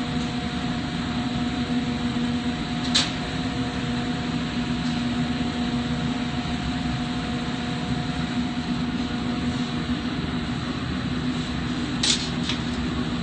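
Steady hiss and hum of a flameworking shop, with the glassworking torch and shop ventilation running, under a constant low hum. Two short sharp clicks stand out, one about three seconds in and one near the end.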